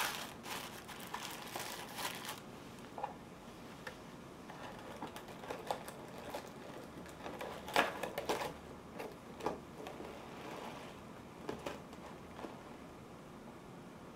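Thin tissue paper rustling and crinkling as hands fold and smooth it, busiest in the first two seconds, then in short, scattered spells with a busier patch around the middle.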